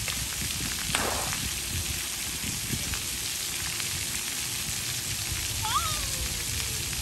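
Splash-pad water jets spraying steadily: a hiss of falling water with droplets pattering on the wet ground, and a brief louder gush about a second in.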